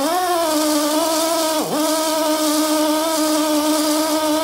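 Hand drill spinning a cylinder hone in a lubricated engine cylinder bore: a steady motor whine that briefly drops sharply in pitch and recovers about a second and a half in, as the drill slows under load.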